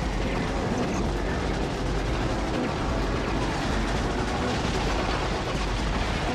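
Continuous heavy gunfire: many overlapping shots crackling without pause, with deeper booms mixed in, as in a battle.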